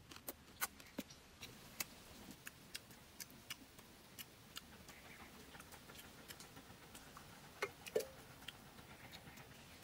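Scattered sharp clicks and light knocks, several in the first couple of seconds and then thinning out, with a louder knock about eight seconds in as a small cup is picked up off the forest floor.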